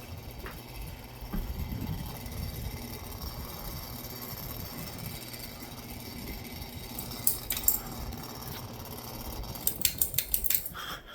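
Mainstays 42-inch hugger ceiling fan running with a loud, low rumble, the fan the uploader calls very loud. A few light clinks about seven seconds in and a quick run of rattling clinks near the end.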